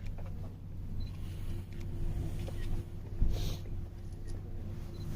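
A car engine idling with a steady low hum and a faint steady tone, and one short thump about three seconds in.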